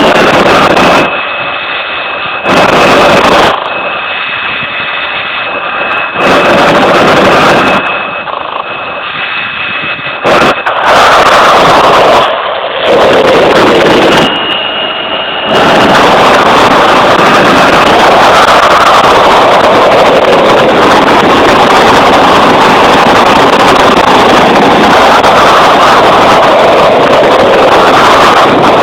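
Loud, overloaded roar of an F-16 fighter jet's engine, swelling and fading slowly, mixed with wind buffeting the microphone.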